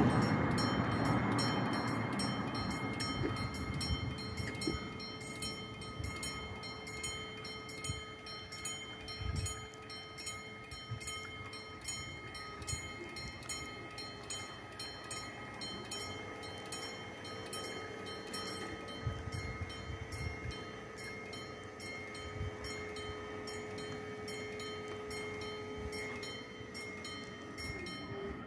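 Level crossing warning bell ringing in quick repeated strikes, about three a second, while the barrier arms are lowered with a steady motor hum. At the start a passing car fades away.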